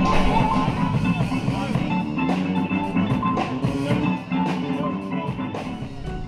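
A rock band playing live: guitar over a drum kit, with a steady run of drum hits.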